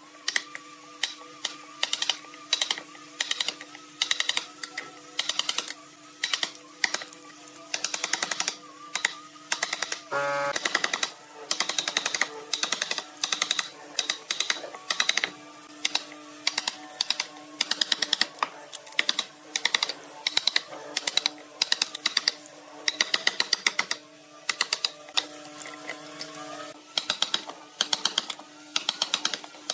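A steel chisel levering and snapping off thin pine fins left between saw kerfs: quick rattling bursts of small cracking clicks, about one or two bursts a second, as the fins split away.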